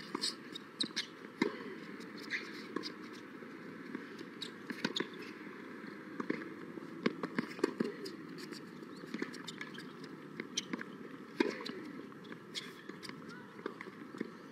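Tennis rally on a hard court: the ball is struck by rackets and bounces on the court, giving a run of sharp pops at irregular intervals, roughly one every half second to second.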